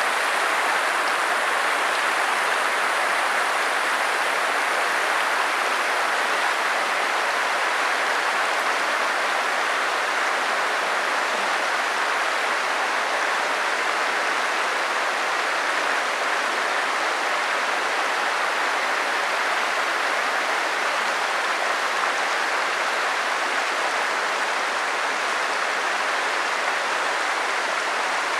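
Stream water running steadily, an even, unbroken rush of moving water.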